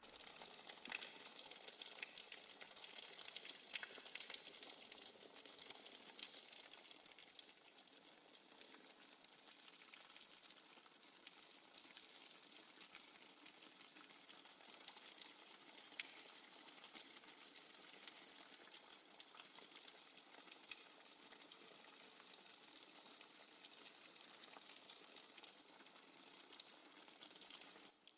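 Faint, steady, fine crackling hiss of water, flecked with many tiny pops.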